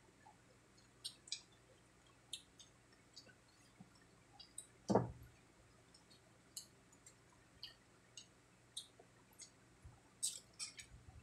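Faint mouth sounds of eating crispy fried pork cheek: scattered clicks and smacks of chewing. There is one louder, deeper sound about five seconds in and a quick run of clicks near the end.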